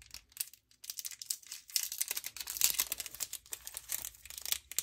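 Hands struggling to open a small charm's packaging. Dense, rapid crackling and rustling starts about a second in and keeps on.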